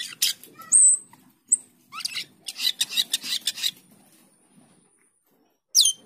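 Asian glossy starling calling. A couple of thin, high whistles come first, then a quick run of harsh, chattering notes, and one loud squeaky note near the end.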